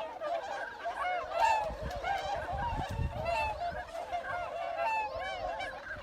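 A flock of geese honking and gabbling, many short calls overlapping without a break.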